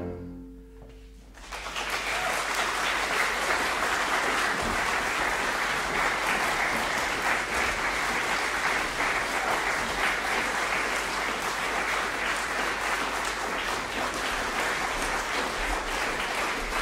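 The final chord of a cello and piano dies away in about the first second and a half, then an audience applauds steadily.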